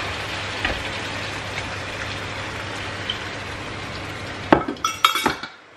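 Hot frying pan of browned chicken and potatoes sizzling steadily as water is poured in. About four and a half seconds in come a few sharp clinks and knocks with a short ring, then the sizzle drops away suddenly.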